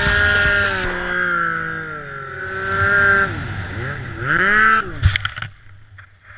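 Snowmobile engine revving hard through deep powder, its pitch rising and falling with the throttle. A sharp knock comes about five seconds in, and then the engine sound falls away to a faint low hum as the sled tips over in the snow.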